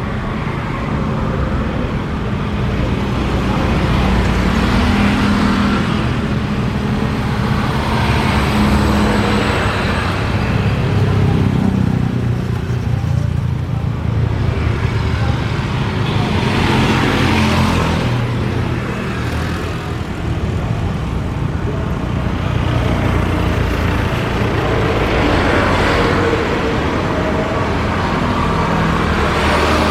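Road traffic rumbling steadily, with vehicles passing every few seconds as the noise swells and fades.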